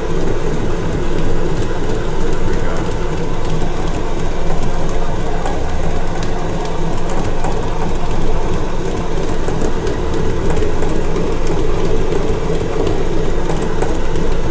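Stand mixer running steadily, its hook churning croissant dough around a stainless steel bowl. The dough is at the kneading stage where it comes together and starts to pull away from the sides of the bowl.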